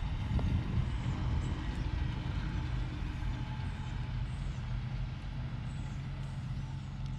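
Vehicle engine running as it pulls away after being shifted into drive: a steady low rumble, loudest in the first second or two.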